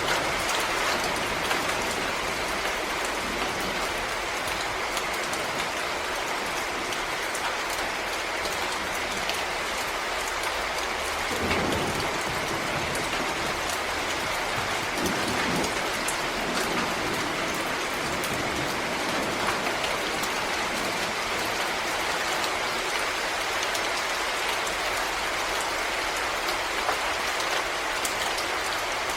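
Steady rain falling, with many separate drops ticking. A brief low rumble comes about eleven seconds in and another a few seconds later.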